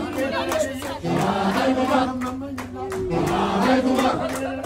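A group of wedding guests singing together in chorus, with long held notes, over rhythmic clapping at about two beats a second.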